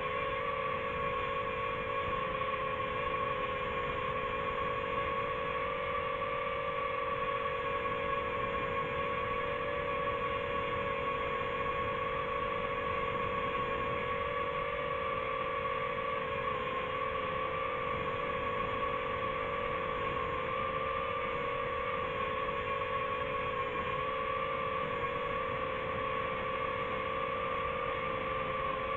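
Multirotor drone's propellers and motors whining steadily while hovering, a held two-note drone hum that wavers slightly in pitch.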